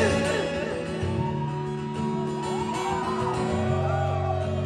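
Live rock band music: acoustic guitar over sustained low bass and keyboard notes in a pause between sung lines, heard from the audience.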